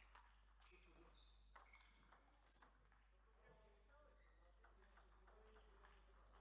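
Faint clicks of a table tennis ball striking bats and table during play, with a few short high squeaks about a second or two in.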